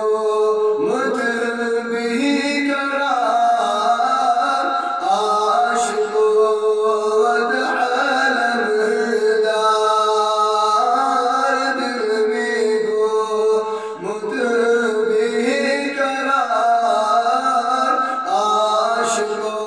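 A man singing a Kashmiri devotional song into a microphone, in long held notes that bend and slide between pitches.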